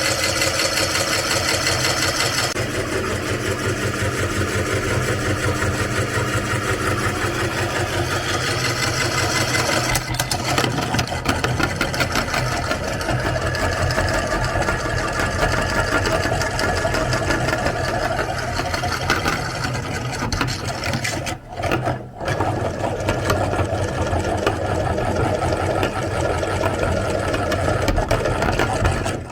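Electric meat grinder's motor running steadily as it grinds soap. The sound drops out briefly twice, a little past two-thirds of the way through.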